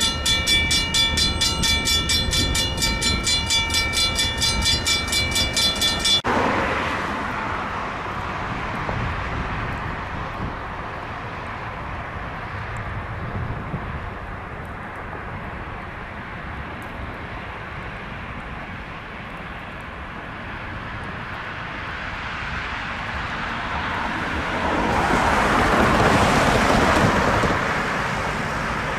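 Grade-crossing warning bell ringing rapidly, then stopping abruptly about six seconds in as the freight train clears the crossing. Underneath, the rumble of the train's cars rolling away fades, and a louder rush of noise swells near the end.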